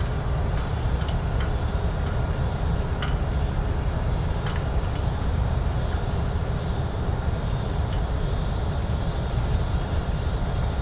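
Downtown street ambience: a steady low rumble of traffic, with a few faint, brief clicks and knocks.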